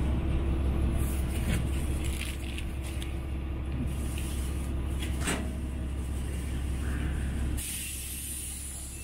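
Diesel railcar's engine idling at a station stop, heard from inside the car: a steady low drone with a few sharp knocks. About seven and a half seconds in, the drone eases and a loud hiss starts.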